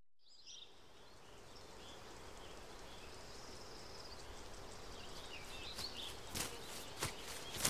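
Outdoor field ambience fading in: a soft steady rushing background with scattered bird chirps, growing gradually louder. About six seconds in, footsteps begin, a step roughly every half second or so.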